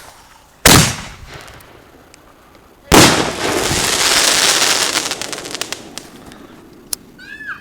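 Consumer fireworks going off: two sharp bangs about two seconds apart. The second bang is followed by about three seconds of hissing and crackling that slowly dies away.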